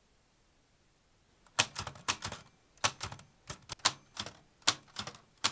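Manual typewriter being typed on: sharp, irregular key strikes of the type bars against the paper, about three a second, starting about a second and a half in after near silence.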